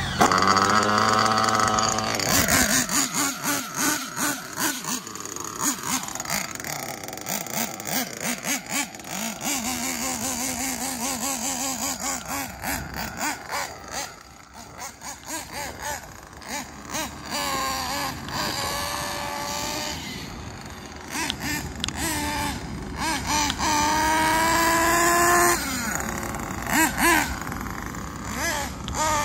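Kyosho Inferno NEO ST 3.0 RC truggy's small nitro engine revving hard and easing off again and again as it is driven, its pitch rising and falling, with scattered clicks. It grows fainter around the middle and comes back louder later on.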